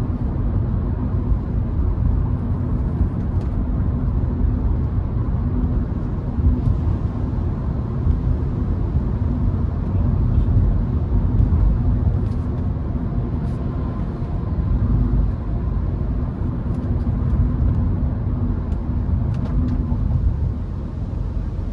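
Road and engine noise inside the cabin of a Hyundai HB20 1.6 while driving: a steady low rumble from its four-cylinder engine and tyres, with a faint hum.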